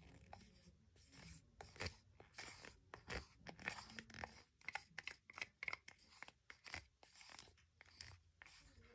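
Wooden stir stick scraping thick acrylic paint out of a plastic cup: a quiet, irregular run of short scrapes and clicks.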